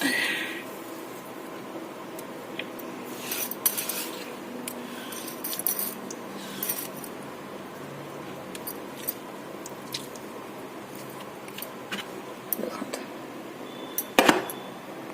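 Kitchen utensils and a bowl being handled: scattered light clinks, taps and short scrapes, with a louder knock near the end.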